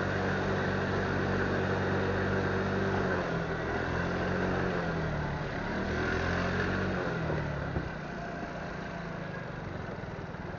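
Motorcycle engine running under the rider, its note steady at first, then falling and rising a couple of times with the throttle. About eight seconds in there is a brief knock and the engine note drops away as the bike comes to a stop, leaving a quieter steady noise.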